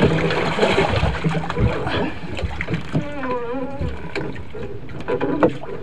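Sea water sloshing against a small wooden outrigger boat, with scattered knocks from the hull and wind on the microphone.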